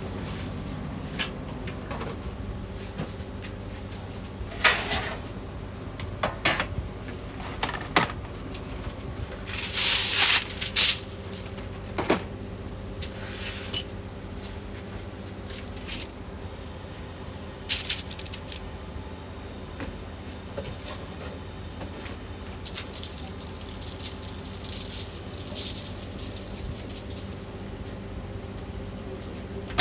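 Restaurant kitchen work: scattered knocks and clatters of a knife, metal tray and cutting board as a chef cuts and lays out pieces of fish, over a steady low kitchen hum. A short rush of hiss comes about ten seconds in, and a longer, softer hiss later on.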